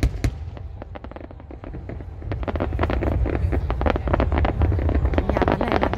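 Aerial fireworks bursting overhead: a sharp bang at the start, then from about two seconds in a dense run of crackling from sparkling stars, over a low steady rumble.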